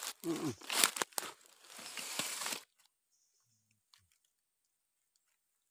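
Rustling and crackling of dry leaves and twigs with a few sharp clicks, as the phone is swung through forest undergrowth; it stops abruptly after about two and a half seconds, leaving near silence.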